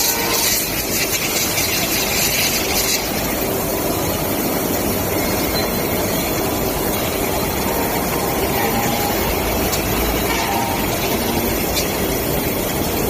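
CNC grinding and deburring machine running on die-cast parts: a steady mechanical noise, with a brighter high hiss of grinding for about the first three seconds.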